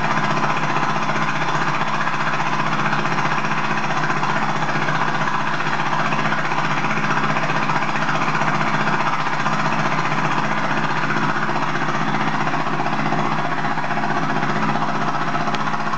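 A machine running steadily and loudly, an unbroken mechanical din with a low hum underneath; its purpose is not clear.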